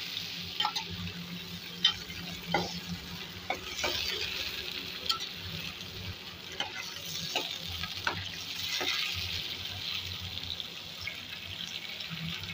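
Small slit eggplants frying in hot oil in a metal pot: a steady sizzle, broken by irregular clicks and scrapes of a slotted metal spatula against the pot as they are turned.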